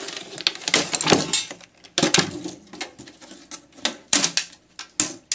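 Parts of an iMac being pulled apart by hand: irregular clicks, knocks and rattles of metal and plastic pieces, some in quick clusters.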